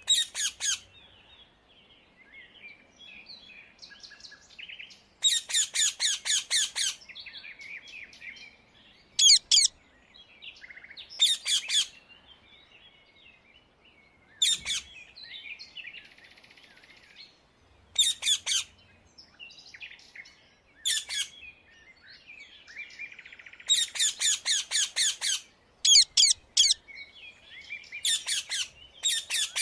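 Rose-ringed parakeet (Indian ringneck) calls: loud, high-pitched bursts of rapidly repeated notes, each burst lasting up to about two seconds, with softer chattering in between.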